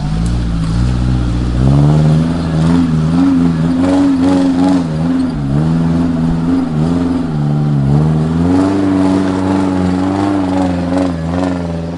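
Engine of a small Suzuki off-road 4x4 revving unevenly as it climbs a rocky dirt track under load, its pitch rising and dipping every second or two.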